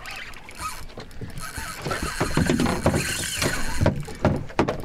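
Water slapping and lapping against a small center-console boat's hull as it drifts, with scattered knocks and clicks on board that grow busier about halfway through.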